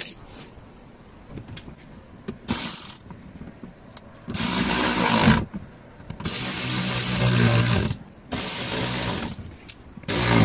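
A fastening tool driving in the screws of a car's underbody protective covers, running in four bursts of one to two seconds each.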